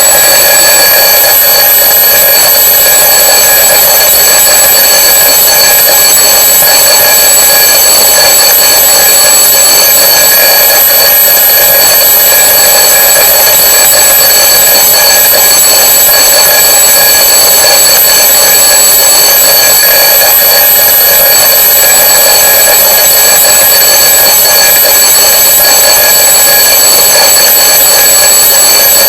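Twin-bell alarm clock ringing loud and unbroken, with a bright, metallic ring that starts abruptly and never pauses.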